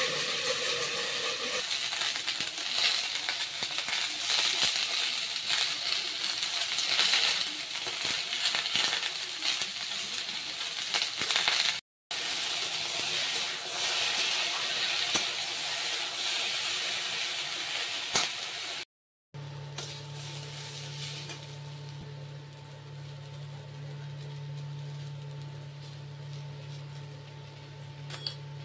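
Sliced ivy gourd (kundru) sizzling as it fries in oil in a steel kadhai, with small clicks and scrapes of a metal spatula. The sound breaks off twice briefly, and in the last part the sizzle is quieter under a steady low hum.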